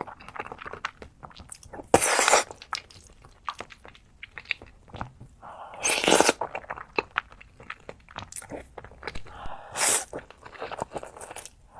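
Close-miked mukbang eating sounds: bites, chewing and crunching with many small mouth clicks, and three louder bursts about four seconds apart.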